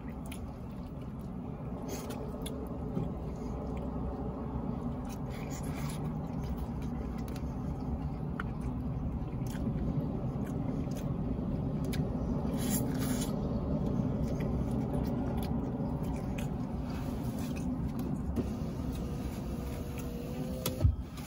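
A steady low vehicle rumble that swells and eases off over the stretch, with faint chewing and small clicks of wooden chopsticks against a takeout container of noodles.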